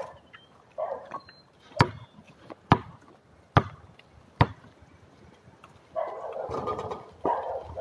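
Basketball bouncing on a concrete court as it is dribbled: four sharp thuds a little under a second apart.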